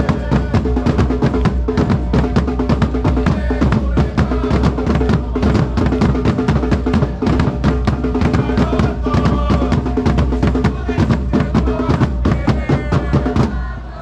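Supporters' drum section playing a fast, driving rhythm on marching snare drums and a bass drum, struck in rapid even strokes, stopping just before the end.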